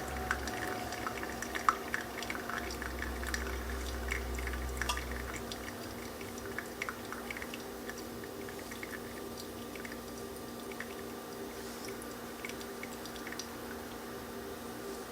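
Brewed coffee dripping and trickling into a glass carafe: scattered small drips and ticks, thick at first and thinning out, over a faint steady hum.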